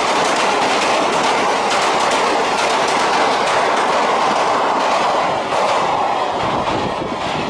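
Indian Railways express passenger coaches rushing past at speed, their wheels clattering over the rail joints in quick repeated clicks over a loud steady rush. The noise eases a little about five and a half seconds in as the tail of the train goes by.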